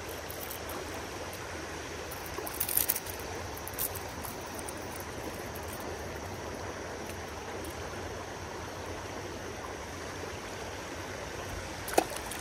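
Shallow creek riffle rushing over stones, a steady flowing-water noise. A short flurry of sharp splashy or handling sounds comes about two and a half seconds in, and a single sharp click near the end.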